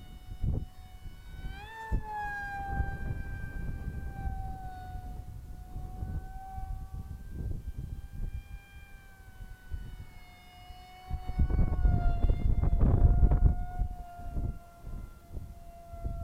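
Electric motor of a radio-controlled MiG-35 model jet in flight, a steady whine with overtones. It jumps up in pitch about two seconds in as the throttle opens, then wavers slightly as the plane flies. Wind buffets the microphone with a low rumble, heaviest in the second half.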